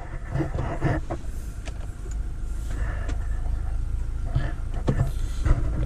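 Toyota 4x4's engine and road rumble heard from inside the cab, a deep steady drone that settles in about two seconds in, with a few short knocks over it.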